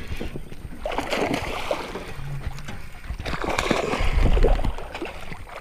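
A hooked bass splashing and thrashing at the water's surface beside the boat during the fight, loudest about four seconds in.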